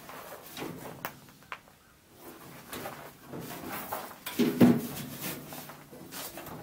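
Scattered knocks and clatter of handling and moving about, with one louder thud and a short ringing about four and a half seconds in.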